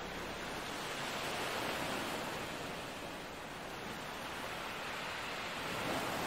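Steady rushing noise that swells and eases slightly, with no distinct events.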